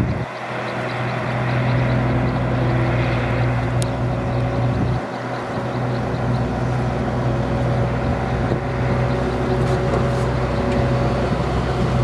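Diesel engine of heavy road-construction machinery running steadily under work, with a brief dip in the sound about five seconds in.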